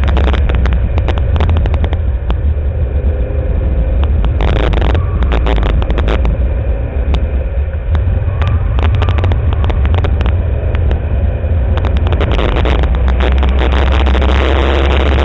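Ford Mustang GT's V8 engine running hard on track, a heavy low rumble mixed with wind and road noise, heard from inside the car. The engine sound eases for a few seconds in the middle, then builds again.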